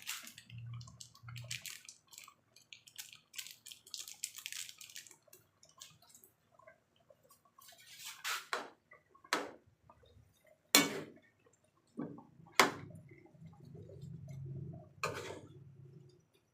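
Kitchen sounds of water dripping and splashing, with scattered small clicks and two sharp knocks, about eleven and thirteen seconds in.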